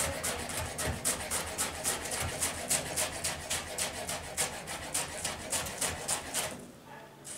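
Kitchen knife chopping vegetables on a plastic cutting board in quick, even strokes, about four or five a second. The chopping stops about six and a half seconds in.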